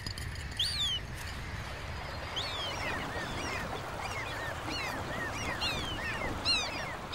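A colony of common gulls calling: many short, overlapping cries that rise and fall in pitch, over a steady low rumble.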